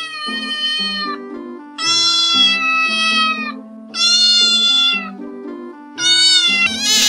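Domestic cat meowing: a long meow trails off about a second in, then come three more drawn-out meows, the last one rising in pitch near the end. Soft background music plays underneath.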